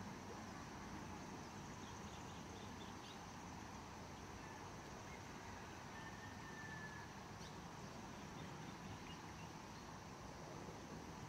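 Faint outdoor ambience: a steady hiss with a few faint, brief bird calls, including one thin whistle about six seconds in.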